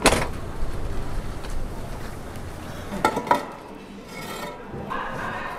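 Concrete cinder blocks knocking and scraping against each other and a metal shopping cart as they are lifted off a pallet and loaded. A sharp knock comes right at the start and a few ringing clinks about three seconds in.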